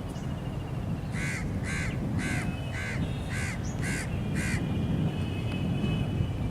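A bird calling seven times in quick succession, about two calls a second, over a steady low rumble.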